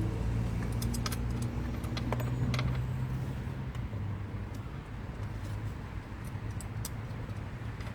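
Irregular light metallic clicks and taps of hardware being worked: a 12 mm nut going onto a saddlebag mounting bolt. Under them runs a low steady vehicle hum that fades about halfway through.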